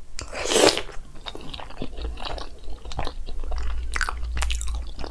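A person chewing a mouthful of gajar ka halwa (carrot halwa cooked in ghee with khoya and dry fruit), heard very close on a lavalier microphone: moist chewing with many small sharp clicks and crunches.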